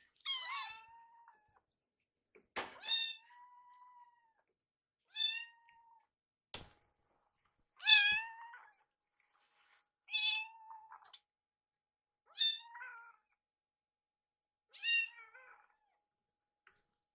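Kittens meowing over and over, about eight short high-pitched meows a couple of seconds apart, begging for food while it is being prepared; the loudest comes about eight seconds in. One sharp knock a little past halfway.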